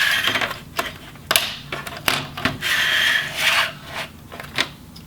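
Plastic screen bezel being pried off a laptop lid: plastic scraping and rubbing, with several sharp snaps as its clips pop free.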